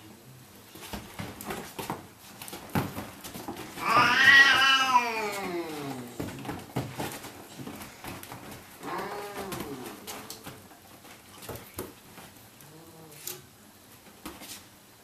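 Siamese cat yowling a warning at a puppy: one long drawn-out call that rises and falls about four seconds in, a shorter call about nine seconds in and a faint low one near the end. Soft scuffles and knocks come from a Labrador puppy moving about on a leather sofa.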